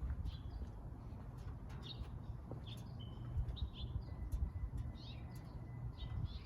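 Small birds chirping in many short, high notes that fall in pitch, over a low rumble.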